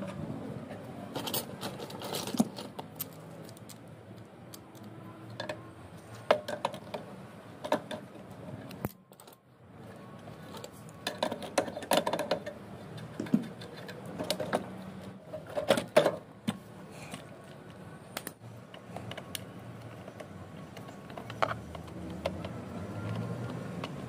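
Irregular clicks, taps and scrapes of hands and a screwdriver working on a water pump's plastic pressure controller and its fittings. The sound briefly falls quiet about nine seconds in.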